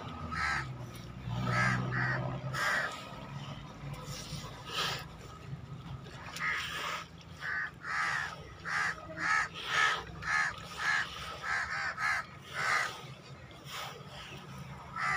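A bird calling over and over in short, harsh notes, about two a second, densest in the middle stretch. A low hum lies under the first couple of seconds.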